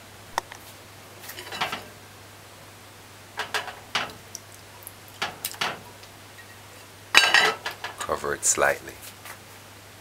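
Clinks and knocks of an aluminium pot, its lid and a china plate being handled on a gas stove: several separate knocks, the loudest about seven seconds in, over a faint steady hum.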